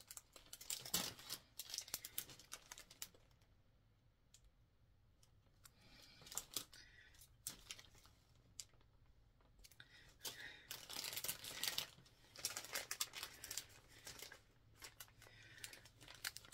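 Clear plastic bags crinkling in several bursts as small packaged earrings are handled, with quieter gaps between.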